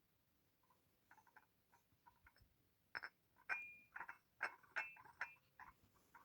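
Faint, irregular light clicks and clinks of crockery being handled, growing busier about halfway through; two of the clinks ring briefly.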